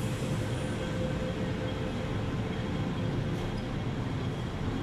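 MTR M-Train electric multiple unit standing at the platform behind the screen doors, with a steady low rumble and an even hum from its equipment. The pitch does not rise or fall.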